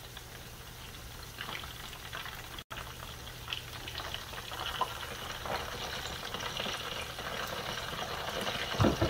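Chicken quarters deep-frying in a skillet of hot oil: a steady sizzle with scattered crackles and pops. A couple of louder knocks come near the end.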